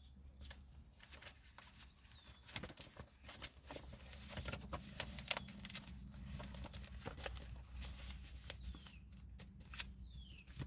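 A deck of cards being shuffled by hand: a faint, irregular run of soft clicks and flicks. A bird chirps briefly a few times in the background.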